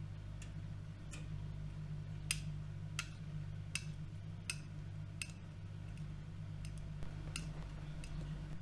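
AEG Öko-Lavamat washing machine running with a steady low hum, a light sharp click repeating about every three-quarters of a second.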